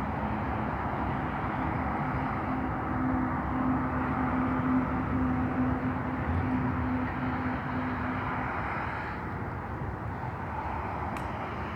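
Potash freight train passing: covered hopper cars rolling on the rails with a steady noise, and a steady hum from the mid-train distributed-power diesel locomotives that fades out about eight seconds in.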